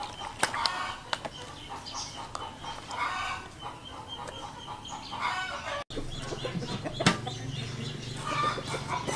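Domestic chickens clucking in short bursts, with a couple of sharp knocks. After a brief dropout about six seconds in, a low steady hum runs underneath.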